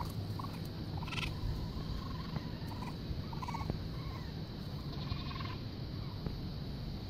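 Young raccoon calling: several short, high calls spread over a few seconds, over a steady low rumble.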